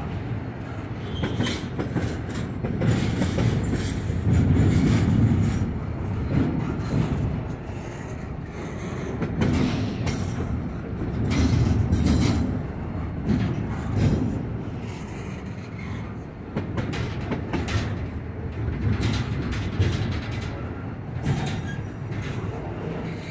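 Double-stack intermodal freight train rolling past close by: a low rumble of wheels on rail that swells and fades as the cars go by, with repeated clicks and clatter from the wheels.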